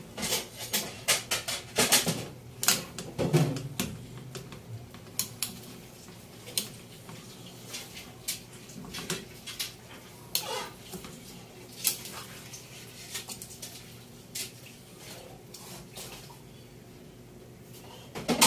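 Metal pots, lids and utensils clinking and knocking irregularly, busiest in the first four seconds, then scattered single clinks.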